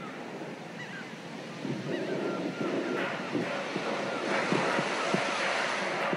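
Beach ambience: a steady wash of surf and wind noise on the microphone, which grows louder about two seconds in.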